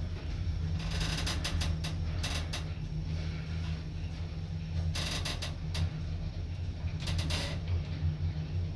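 Kone MonoSpace EcoDisc elevator car travelling down between floors: a steady low hum, with short clusters of clicking and creaking four times.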